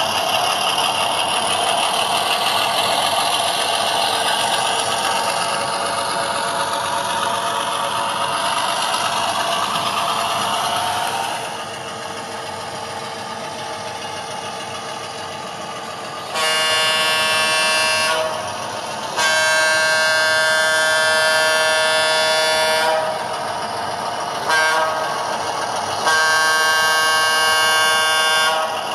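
ESU LokSound Select sound decoder in an HO-scale Walthers SW8 switcher, playing diesel switcher sounds through its small speaker. For the first ten seconds or so the engine sound runs and shifts in pitch. From about halfway, the horn sounds four times, long, long, short, long: the grade-crossing signal.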